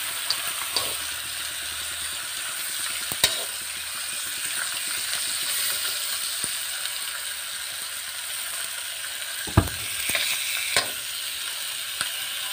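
Pork chops frying in oil in a metal pan, a steady sizzle. A few sharp knocks cut through it, the loudest about nine and a half seconds in.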